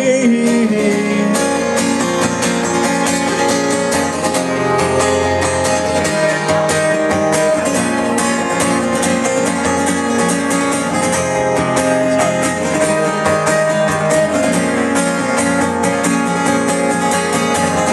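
Live acoustic guitar strummed steadily through an instrumental break of a folk-rock song, with no singing.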